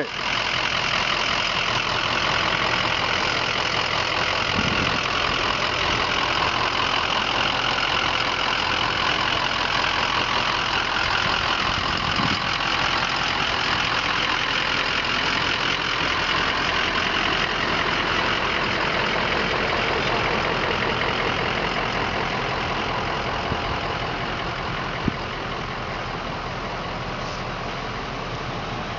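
Vehicle engine idling steadily, a continuous even rumble and hiss that eases off slightly near the end, with a couple of faint thuds.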